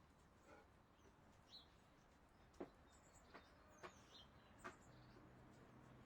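Very faint, scattered high bird chirps with a few soft clicks in the middle.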